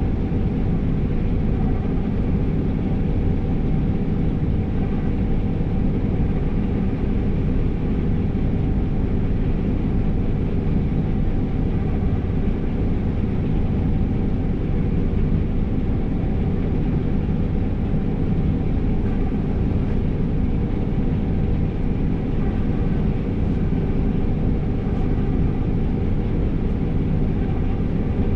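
New Holland CR5.85 combine harvester running under load while harvesting, heard from inside the cab: a steady drone of engine and threshing machinery with faint steady humming tones.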